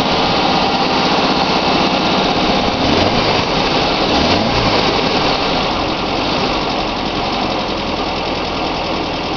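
Newly installed air-cooled Volkswagen flat-four running on its first fire, its throttle worked by hand at the carburettor. The revs rise and fall twice, about three and four seconds in, then settle back to a steady idle.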